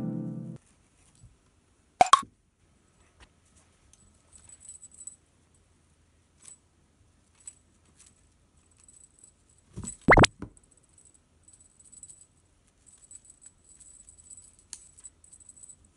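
Two short cartoon 'plop' pop sound effects, one about two seconds in and a louder one about ten seconds in. Between them are faint scattered ticks and rustles.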